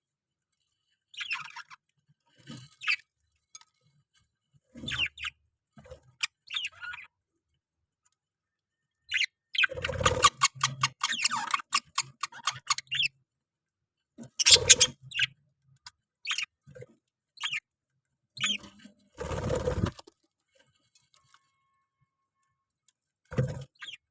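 Parrots calling in short, separate bursts of chirps and squawks with silent gaps between them. A dense run of rapid chattering comes near the middle, and a few louder bursts come later.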